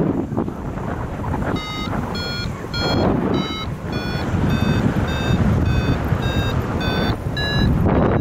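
Paragliding variometer beeping its climb tone, short beeps about two a second, rising slightly in pitch: the glider is climbing in a thermal. Wind rushes over the microphone throughout.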